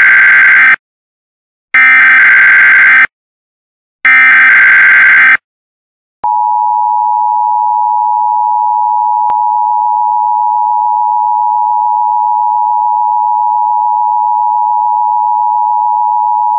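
Emergency Alert System SAME header: three bursts of digital data tones, each about a second long and a second apart. About six seconds in, the two-tone EAS attention signal starts and holds steady.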